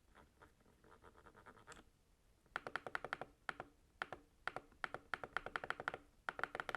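Typing on an Attack Shark K86 mechanical keyboard: quick runs of key clicks, faint for the first two seconds, then much louder from about two and a half seconds in.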